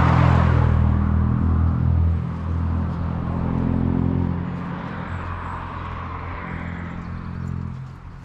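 A motor vehicle's engine running with a steady low hum and road hiss. It is loud at first and fades gradually as the vehicle moves off.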